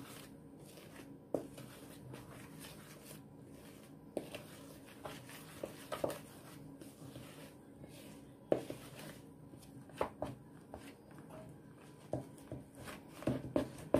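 A hand mixing flour into a wet batter in a plastic bowl: faint rubbing with scattered soft knocks and taps against the bowl, coming more often near the end.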